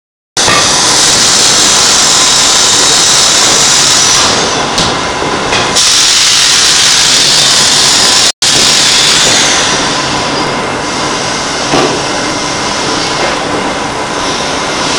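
Large pneumatic forging hammer working hot steel: a loud, continuous hiss and rush of air and steam with no clearly separate blows. It cuts out for an instant about eight seconds in.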